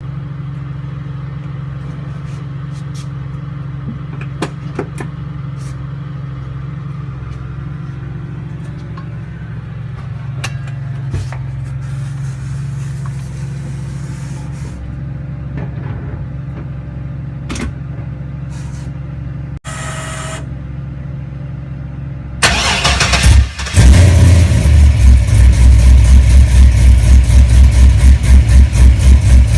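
A car running in motion, a steady low drone with an occasional sharp, irregular ping, the unexplained noise the car makes while moving. Near the end the sound becomes much louder, with a fast, evenly pulsing low rumble.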